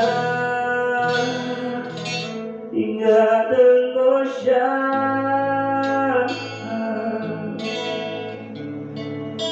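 Guitar playing the closing bars of a slow Tagalog love song, with long sung notes over it that bend in pitch about three to four seconds in, then hold.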